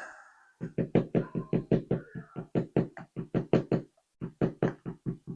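Rapid series of sharp knocks, about four a second, from the gutted ASSA 700 lock's parts being knocked against a hard surface. It stops abruptly at the end.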